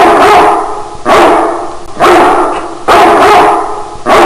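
A dog barking loudly and repeatedly, about one bark a second, five barks in all.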